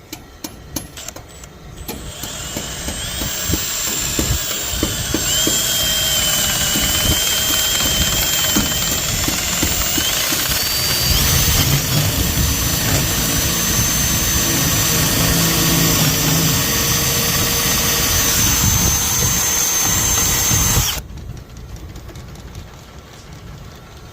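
Power drill boring into the lock of a metal mailbox to drill it out. After a few clicks it runs steadily with a high whine that steps up in pitch partway through, then stops abruptly near the end.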